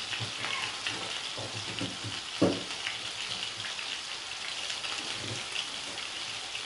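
Minced-meat cutlets frying in vegetable oil in a frying pan: a steady crackling sizzle, with one short louder knock about two and a half seconds in.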